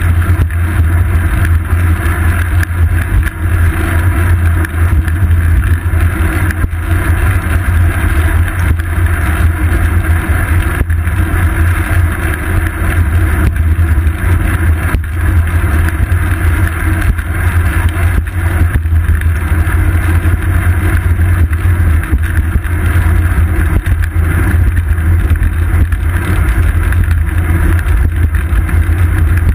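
Steady, loud low rumble of wind and road vibration picked up by a GoPro Hero 2 mounted on a moving bicycle's seat post.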